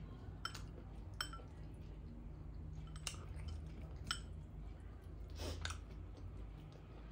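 Fingers picking through food on a ceramic plate, with about half a dozen small, sharp clicks and clinks against the plate spaced a second or so apart, over a faint steady hum.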